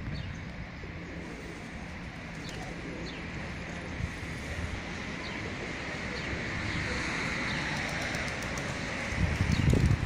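Outdoor street ambience: wind rumbling on the microphone over a steady hum of distant traffic, with a few faint high bird chirps. The wind rumble grows louder near the end.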